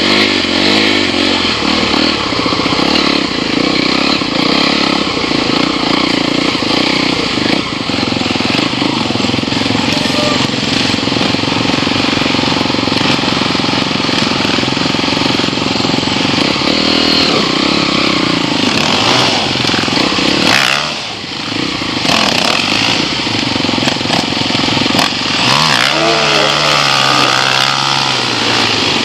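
Enduro dirt bike engines running along a rough trail, the nearest bike loud and close with its revs rising and falling. The level dips briefly about three-quarters of the way through, and the revs climb again near the end.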